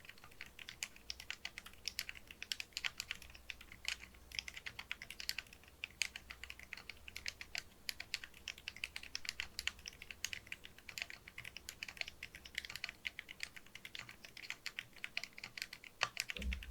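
Fast, continuous typing on a mechanical keyboard fitted with lubed Akko Haze Pink silent switches: a dense patter of soft, muted clicks, with a heavier thump near the end.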